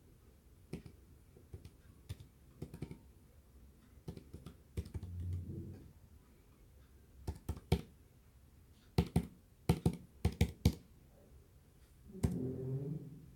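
Keyboard keys clicking in quick clusters of taps as digits are typed in. A short low murmur is heard about five seconds in and again near the end.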